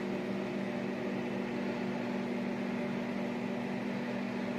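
Microwave oven running, a steady even hum, heating two whole eggs in their shells.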